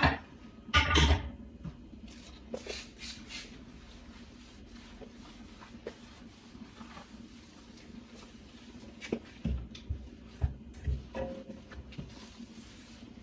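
Knocks, taps and light rustling of household items being handled and set down on a granite countertop, with a louder knock about a second in and a cluster of taps near the end.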